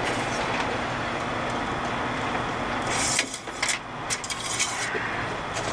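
Steady background rumble; about three seconds in, a run of short scraping clicks as the engine oil dipstick is drawn out of its metal tube to check the oil level after topping up.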